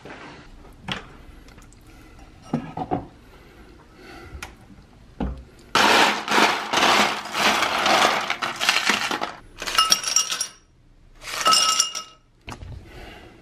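Ice cubes scooped from a freezer ice bin, a loud crunching rattle lasting several seconds, after a few light knocks. Then ice is dropped into a drinking glass in two clinking bursts, the glass ringing each time.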